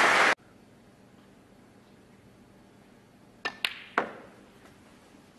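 Applause that cuts off abruptly just after the start, then a quiet pause broken by three crisp clicks within about half a second, a little over three seconds in: a snooker shot, cue tip striking the cue ball and ball knocking against ball.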